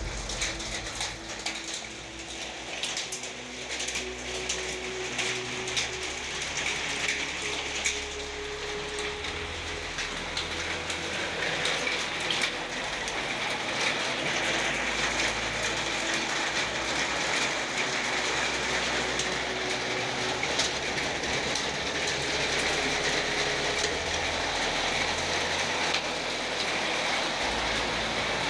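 Hailstorm: steady rain with a dense patter of small hailstones ticking on hard surfaces, growing a little louder after the first few seconds.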